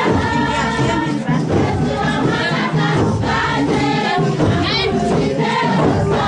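A group singing together in chorus with percussion beating along: live dance music.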